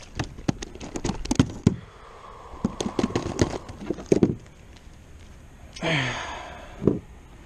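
Sharp clicks and knocks as a bass is swung into a plastic kayak and handled, with a lip-grip tool clamped on its jaw, thickest in the first two seconds and again around three to four seconds in. About six seconds in there is a short breathy grunt, then one more knock.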